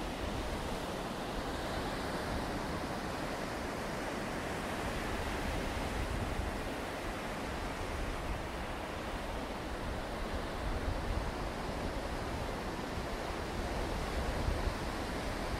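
Steady wash of sea surf, with wind rumbling on the microphone.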